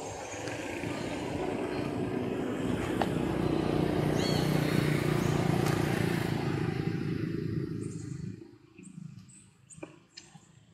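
A motor vehicle's engine running, swelling and then fading away about eight seconds in, with a couple of short high chirps midway.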